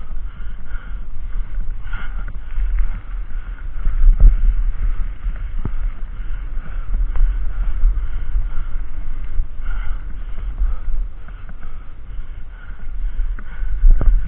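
Wind buffeting the microphone in a steady low rumble while a mountain bike rolls over rough trail, with scattered knocks and rattles from bumps, the louder ones about four, six and fourteen seconds in.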